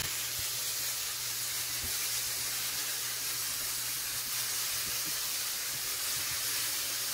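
Minced onion, garlic, ginger and chili frying in hot oil in a pan, making a steady sizzling hiss: the salted onion is giving up its water, which cooks off in the oil.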